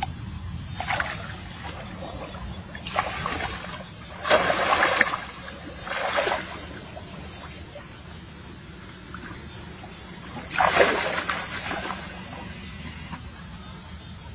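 Pond water splashing and sloshing as a person wades and gropes about in the shallows with her hands, in several separate bursts, the loudest about four seconds in and again about eleven seconds in.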